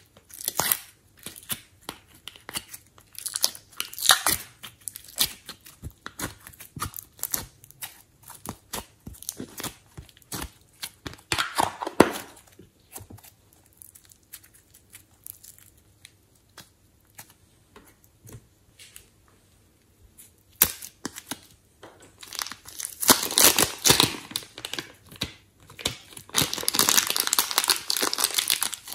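Close-up slime and clay handling: soft clay peeled from plastic trays and glossy slime stretched, with many small sticky crackles and pops. Near the end a plastic piping bag is torn open and crinkled, a denser crackling rustle.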